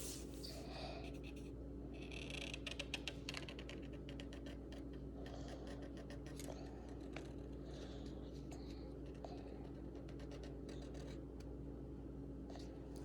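Pencil scratching on paper in quick short strokes, tracing a drawing, over a steady low hum.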